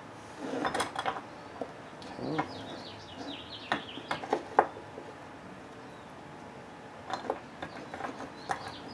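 A ball screw, its ball nut and a clear plastic hose handled on a wooden workbench: scattered light clicks and knocks of metal parts being moved and set down.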